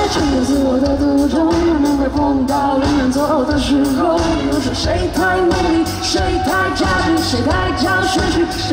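A singer's voice over a live pop-rock band, with a steady drum beat.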